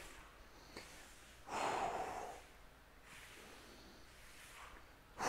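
A man exercising breathes out hard, in a rush of breath about a second and a half in, with a fainter breath a little later.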